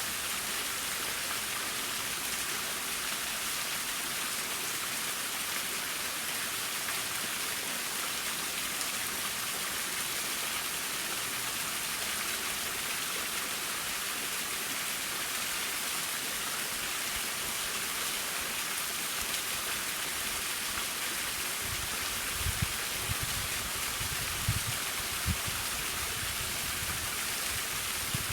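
Small waterfall splashing steadily, a bright, even hiss of falling water. A few short low bumps come in near the end.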